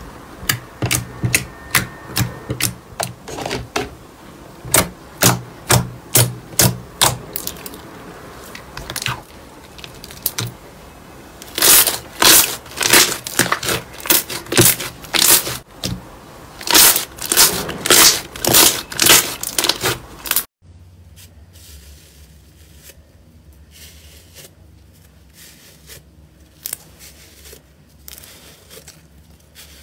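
Slime being squeezed and pressed by hand, giving quick runs of sharp crackles and pops. About two-thirds of the way through it cuts to a quieter stretch with fainter, scattered clicks.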